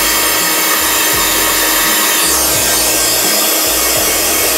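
Hot air gun running steadily, blowing hot air onto black plastic exterior trim to soften it. Low background music plays underneath.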